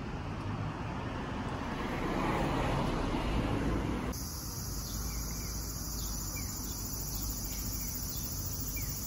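Outdoor street ambience: an even wash of noise that swells about two seconds in, like a vehicle passing. After a cut about four seconds in it gives way to a quieter scene with insects shrilling steadily at a high pitch.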